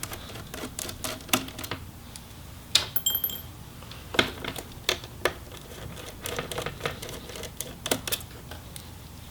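Irregular light clicks and small metallic taps from a screwdriver turning out and setting down laptop hinge screws.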